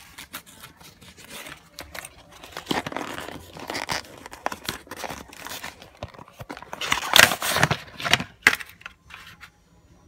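Cable packaging being opened by hand: cardboard and clear plastic rustling and crinkling, with scattered clicks and handling knocks. It is loudest from about seven to eight and a half seconds in.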